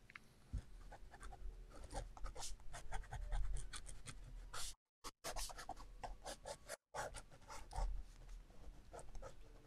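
Quiet, scratchy strokes of a brush working on a painting surface, many short strokes one after another. The sound cuts out completely for a moment twice near the middle.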